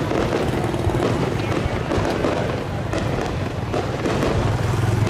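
Music playing while fireworks go off, with scattered bangs and crackles through it.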